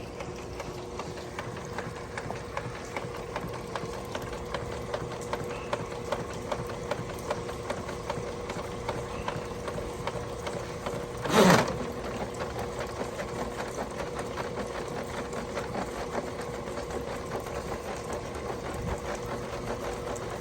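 Motorized drain-cleaning machine running steadily, its cable spinning in a sewer line being cleared of a grease stoppage, with a fast even rattle and a steady hum. One brief loud sweeping sound cuts in about eleven seconds in.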